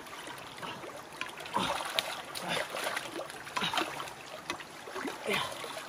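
Muddy shallow water sloshing and splashing as a person wades and gropes through it by hand, in repeated short surges about once a second.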